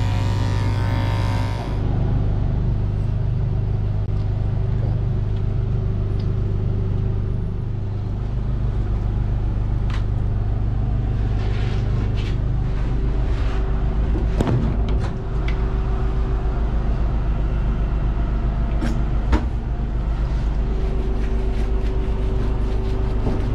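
An engine running at a steady idle, giving a constant low drone, with a few light clicks and knocks over it. Electric dog clippers buzz briefly at the very start.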